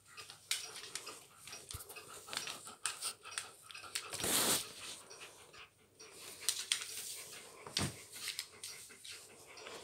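A black-and-white pet snuffling and breathing with its nose in a white plastic box, amid scattered rustling and scratching. A louder burst of breath comes about four seconds in.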